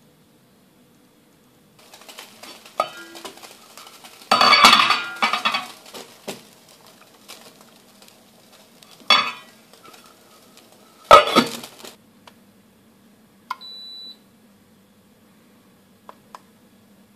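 Metal brewing pot clattering and clanking as it is handled, with three loud clanks. About two-thirds of the way through, a digital thermostat's button clicks and it gives a short high beep.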